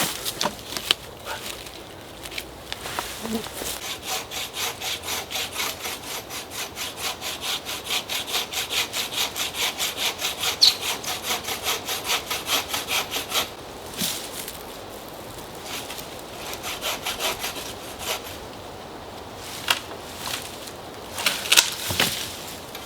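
Homemade bow saw cutting through a wooden pole in quick, even back-and-forth strokes, about three a second, for around ten seconds. Quieter handling of wood and a few sharp knocks follow near the end.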